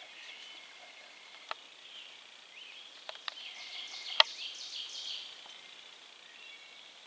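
Songbirds singing in the woods, with a busier high trilling passage around the middle. A few sharp clicks stand out, the loudest about four seconds in.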